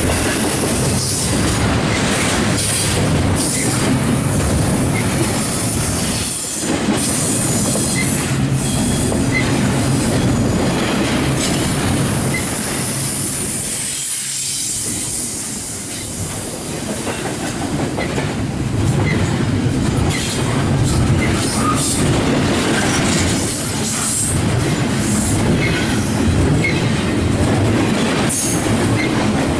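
Double-stack intermodal freight train's well cars rolling past close by: a steady rumble of steel wheels on rail with repeated clacks over the joints and brief high wheel squeals. There is a short lull about halfway through.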